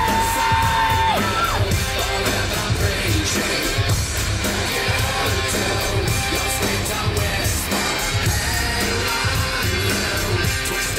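Loud heavy nu-metal song playing over a bar's sound system, with distorted electric guitar, a heavy drum beat and shouted singing. A long held high note ends about a second in.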